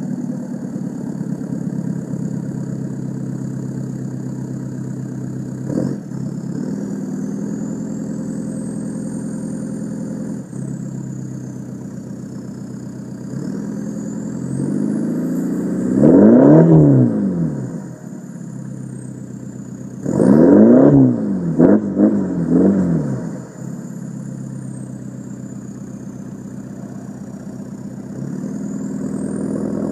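2010 VW Jetta TDI's 2.0-litre four-cylinder turbodiesel idling just after a cold start, heard at the tailpipe of a Rawtek downpipe and midpipe with a custom 3-inch cat-back exhaust. About halfway through it is revved up once and falls back, then a few seconds later blipped three times in quick succession before settling back to a steady idle.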